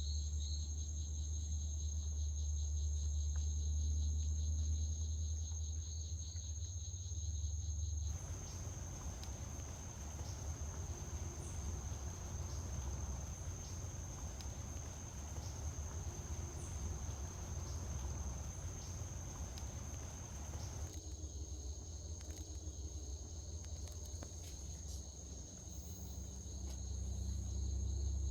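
Insects trilling in one steady, unbroken high-pitched tone, joined at times by a second, lower trill, over a low rumble. The mix changes abruptly about eight seconds in and again about 21 seconds in.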